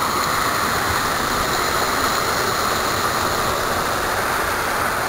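Steady rolling noise of a moving bicycle ride: tyres running on the path and wind on the microphone, an even, unbroken rush.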